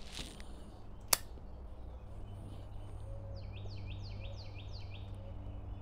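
A metal lighter's lid snaps shut with one sharp click after the pipe is relit. A couple of seconds later a bird calls a quick run of about six falling chirps.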